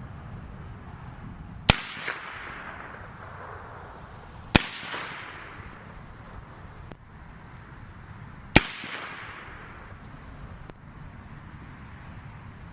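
Three suppressed rifle shots from an 11.5-inch Daniel Defense AR-15-type rifle fitted with a Surefire RC2 suppressor, spaced about three and four seconds apart. Each sharp crack is followed by an echo that fades over a second or two.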